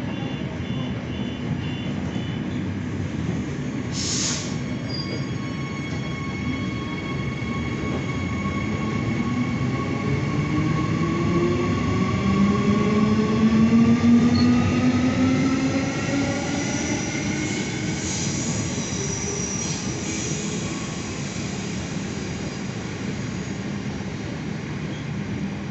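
Transperth electric train pulling away, its traction motors whining and rising steadily in pitch as it gathers speed. It is loudest about halfway through, then fades as it runs off around the curve.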